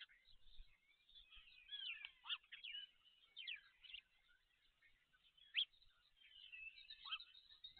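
Birds calling faintly: a run of short chirps and quick down-slurred whistles, with one sharper call a little past halfway.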